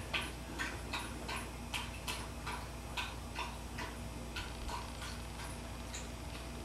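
Dog with its head in a stainless steel bowl, its mouth working at what is in it: a short, slightly uneven click about three times a second.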